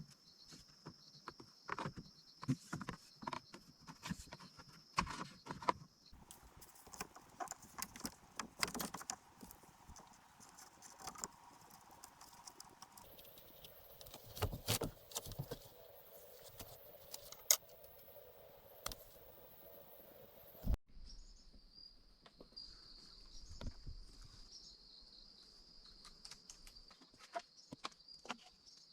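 Irregular knocks, taps and clicks, like hands working with wood or bamboo, over a steady high drone of jungle insects that is heard in some stretches and drops out in others.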